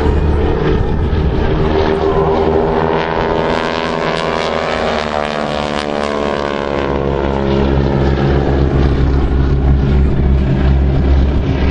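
Propeller-driven aircraft engines droning as planes fly past, the engine note shifting in pitch about halfway through as they pass by.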